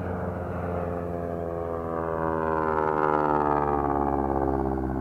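Propeller-driven airplane flying past low: its engine note swells to a peak about three seconds in, then drops in pitch as it passes and moves away.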